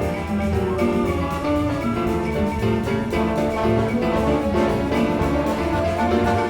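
Piano and symphony orchestra playing a jazz-inflected samba, with a walking bass line under the piano and strings.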